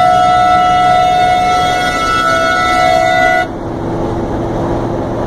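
Bus horn sounded in one long steady blast that cuts off about three and a half seconds in, leaving the steady engine and road noise of the moving bus.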